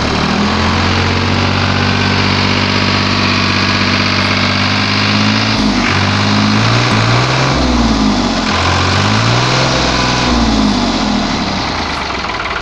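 New Holland TT55 tractor's three-cylinder diesel engine idling steadily, then revved up and back down several times in the second half.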